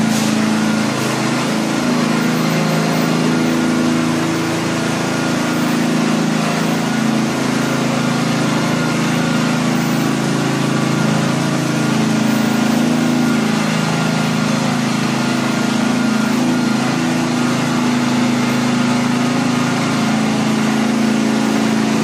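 Engine of a self-propelled hazelnut harvester running steadily as the machine is driven and manoeuvred.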